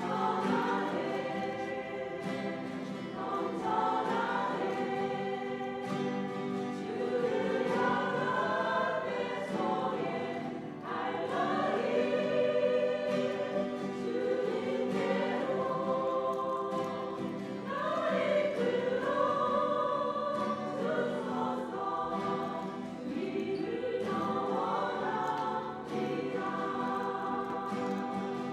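Church choir singing a gospel praise song in long phrases with held notes.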